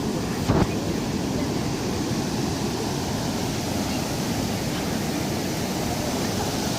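Steady rushing noise of ocean surf and wind, with a brief thump about half a second in.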